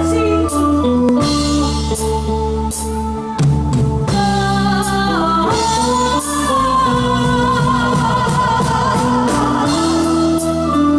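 Live band accompaniment with a voice singing into a microphone, heard through the stage PA.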